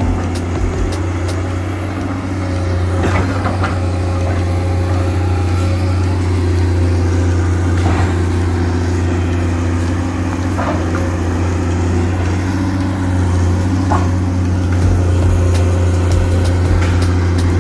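Komatsu PC200 crawler excavator's diesel engine running steadily with a deep hum, with a few sharp knocks scattered through.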